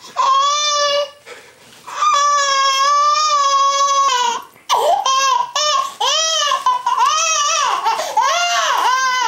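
Infant crying hard from its first vaccination shots: two long, high-pitched wails, then from about halfway through a run of short rising-and-falling sobbing cries.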